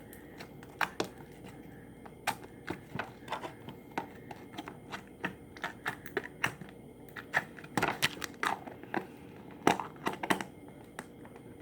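Clear slime being squeezed and stretched by hand, giving off irregular sticky clicks and small pops.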